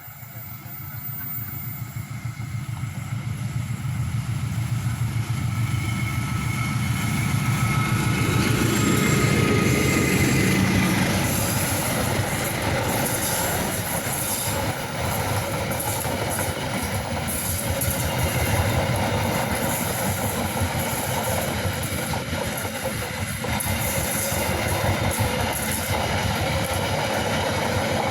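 Taksaka passenger train passing: the sound grows over the first several seconds as the locomotive comes near, then holds as a steady loud run of carriages with the clatter of wheels on the rails.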